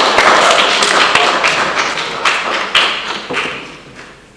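A small audience clapping, a dense patter of many hand claps with a few louder single claps, dying away near the end.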